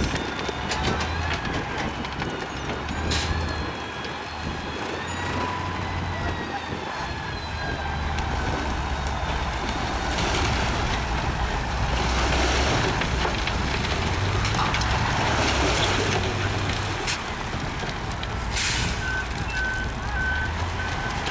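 Heavy diesel trucks and machinery running with a steady low rumble, and a high squeal in the first few seconds. There are bursts of hiss in the middle, a sharp hiss near the end, and then a reversing beeper starts pulsing.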